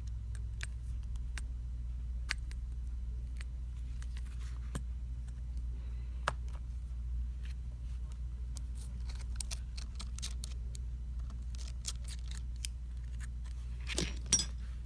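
Scattered small clicks and light taps of metal tools on the phone's small parts and screws, with a quicker, louder cluster of clicks near the end, over a steady low hum.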